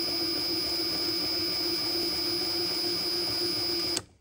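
Hyper Tough 20-volt brushless impact wrench running at its lowest working speed, about 210 rpm, spinning steadily without hammering and giving a steady high whine. It cuts off sharply near the end.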